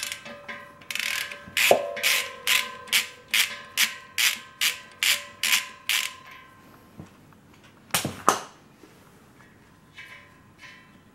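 A socket ratchet on a long extension bar clicks in a steady run of about a dozen clicks, a little over two a second, as the fusible plug is unscrewed from the boiler inside the firebox. Each click rings on briefly. About eight seconds in there are two loud metal knocks, then a few faint clicks.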